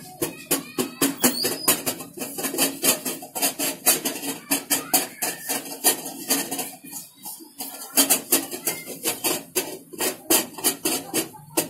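Metal spoon stirring melting chocolate in a steel bowl set over a pot of hot water, clinking and scraping against the bowl in quick, irregular strokes, several a second.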